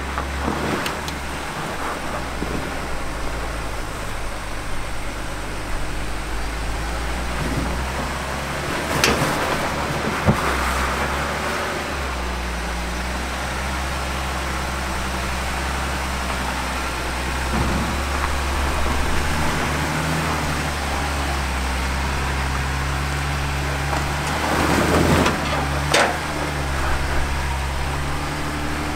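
Lifted Jeep Gladiator's 3.6-litre V6 working at low revs as the truck crawls up a rock ledge on 40-inch tyres. The engine note rises and falls with the throttle, with a few sharp knocks from the climb. It climbs on an open rear differential, the lockers not engaged.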